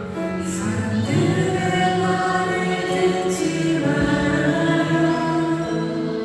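Several voices singing a Christian worship song together over musical accompaniment, holding long notes.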